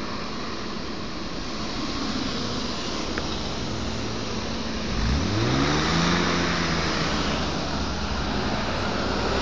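Cars passing on the road, with steady engine and tyre noise. About five seconds in, one car's engine revs up as it accelerates, its pitch rising and then holding steady for about two seconds before fading back into the traffic.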